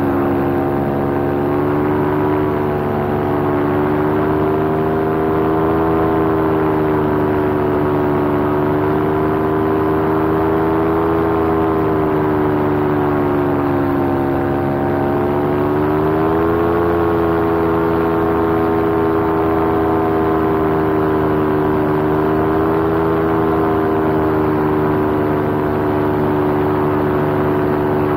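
Paramotor engine and propeller running steadily in flight, the pitch sagging slightly, then rising again about 16 seconds in.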